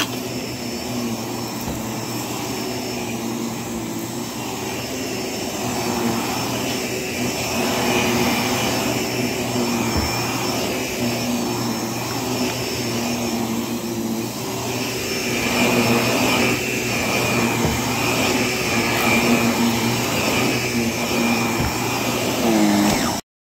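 Vacuum cleaner running on carpet, a steady motor hum with a high whine, swelling louder and fading as it passes back and forth close by. The sound cuts off suddenly near the end.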